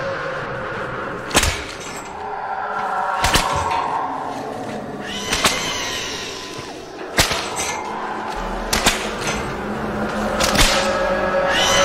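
Whip lashes striking a bound man, about seven sharp cracks spaced one to two seconds apart, over a sustained music score.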